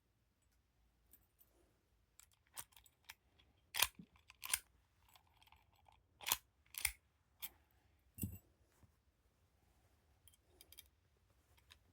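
Irregular sharp metallic clicks and taps from a disc padlock being handled and worked with picking tools. They come singly or in pairs, loudest in the middle stretch, with one duller knock about eight seconds in.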